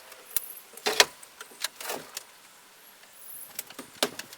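A few sharp clicks and metallic rattles, the loudest about a second in, as a metal tape measure is handled to measure plywood.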